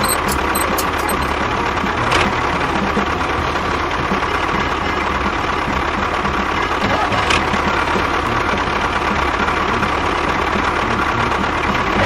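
Small motor of a homemade miniature machine running steadily, with a constant whine and a regular rattling throb underneath. A couple of short clicks come about two seconds in and again past the middle.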